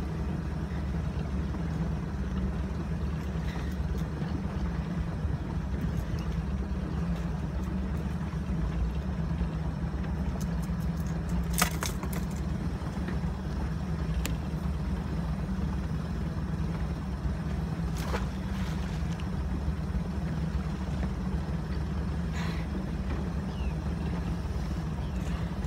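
Boat engine running steadily at slow trolling speed, a low, even hum, with a few light clicks and one sharp knock about halfway through.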